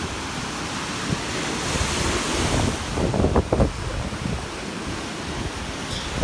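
Small lake waves breaking and washing up onto a sandy beach, with wind buffeting the microphone. The buffeting is loudest just past three seconds in.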